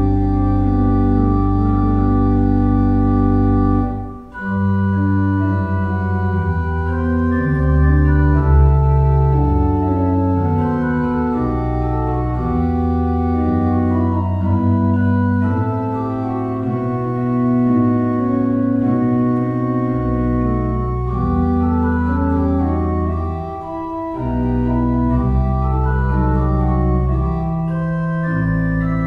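Organ playing offertory music in slow, held chords over a moving bass line, with a short break between phrases about four seconds in.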